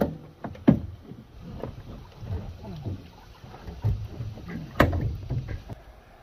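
Water sloshing in a plastic trash can as it is handled, with sharp knocks against the can, the loudest under a second in and near five seconds.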